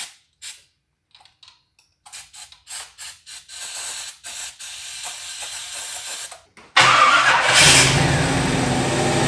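Short hissing squirts of aerosol starting fluid into the carburetor. About seven seconds in, the crate 350 small-block V8 suddenly fires and settles into a steady run.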